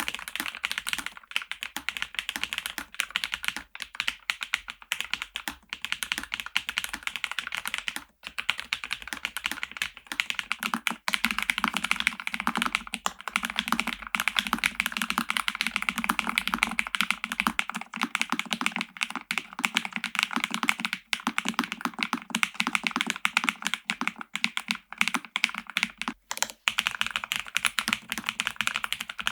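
Fast, continuous typing on a Lofree Flow Lite low-profile wireless mechanical keyboard: a dense run of key clicks with no pauses longer than a moment.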